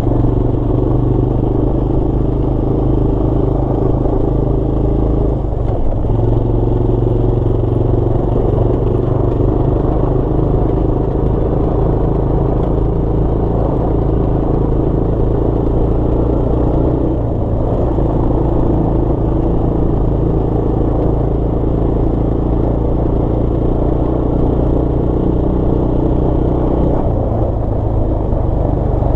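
Honda ATV engine running steadily under way, heard from the rider's seat, with the engine note breaking briefly about five seconds in, again around seventeen seconds, and near the end.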